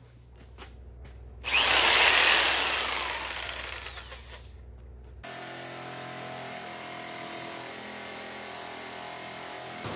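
Corded orbital jigsaw cutting steel sheet, running steadily at an even pitch from about five seconds in. Before it, a loud burst of noise about a second and a half in fades away over a couple of seconds.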